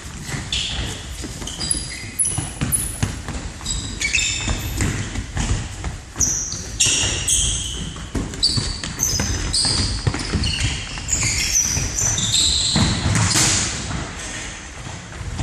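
Indoor football in a sports hall: many short, high squeaks of sneakers on the hall floor, often several a second, with the ball thudding, all echoing in the hall.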